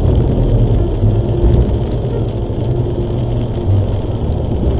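Car driving at speed on a wet freeway in heavy rain, heard from inside the cabin: a steady low road and engine rumble with tyre and spray noise.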